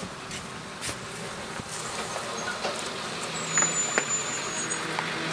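School bus engine running steadily at low speed, a low hum, with a few faint clicks.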